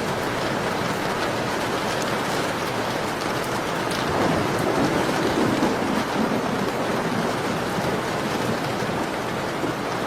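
Steady rain mixed with fireplace crackle, small sharp pops scattered through it. A deeper, louder swell comes in about four seconds in and fades a couple of seconds later.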